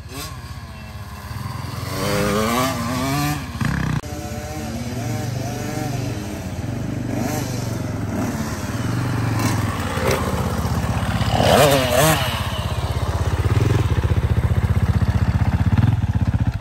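Husqvarna TC 50 two-stroke kids' dirt bike engine running under way, its pitch rising and falling repeatedly with the throttle. It stops abruptly at the end.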